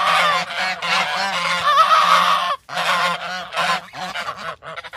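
A flock of birds calling loudly, many overlapping calls at once, with a short break about two and a half seconds in and then shorter, choppier calls.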